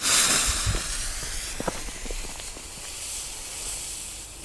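Fuse of a homemade match-head firecracker hissing as it burns, loudest as it catches and then fading to a steadier hiss. A few crunching footsteps on gravel in the first couple of seconds.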